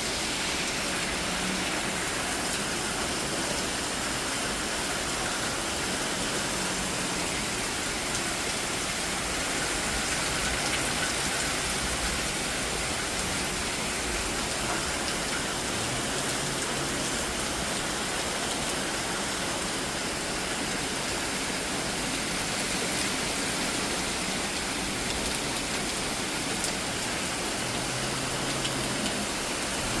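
Heavy tropical-storm rain pouring down, a dense, steady hiss without a break.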